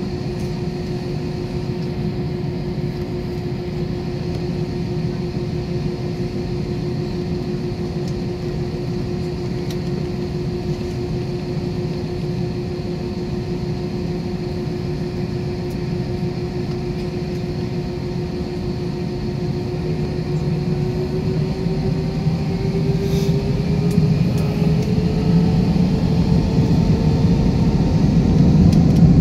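Airbus A321 jet engines heard from inside the cabin: a steady drone with a constant whine, which rises in pitch and grows louder over the last several seconds as the engines spool up for takeoff.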